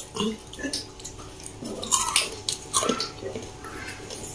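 Soft chewing and eating sounds of people snacking at a table, with a few short light clicks and taps scattered through, such as a plastic spoon in a cup.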